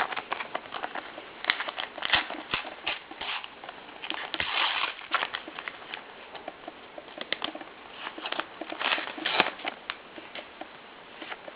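Paper sticker packet being torn open and handled, with rapid crinkling and rustling clicks and a longer tearing rasp about four and a half seconds in.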